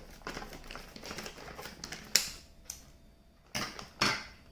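Plastic snack wrapper crinkling and crackling as it is handled and torn open, in quick irregular clicks, with a sharp snap about two seconds in and two louder rustles near the end.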